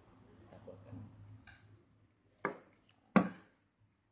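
Sharp clicks and knocks of the Lunatik Taktik Extreme iPhone 5 case's aluminium and rubber parts being handled and pulled apart. There are three, a faint one and then two louder ones about half a second apart near the end, the last the loudest.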